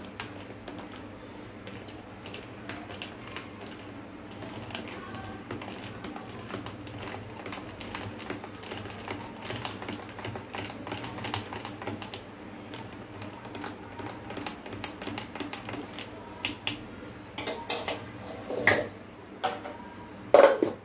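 Metal spoon stirring a drink with ice cubes in a tall glass, clinking quickly and irregularly against the glass and the ice. A couple of louder knocks come near the end.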